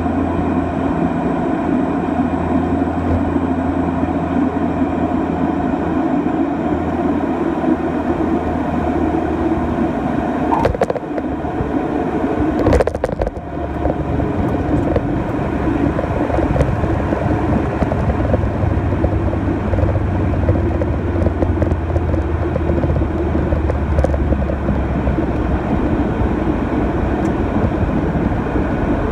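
Cockpit sound of a Beechcraft King Air 200's twin turboprop engines and propellers running steadily on short final. About halfway through, a brief rumble and knocks mark the wheels touching down on the runway. The engine sound carries on, with a stronger low hum, through the landing roll.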